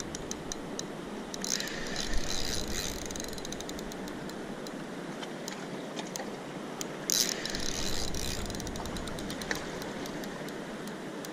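Spinning reel clicking rapidly as a big fish is fought on it, the handle cranking line in under heavy strain. It gets louder about two seconds in and again about seven seconds in.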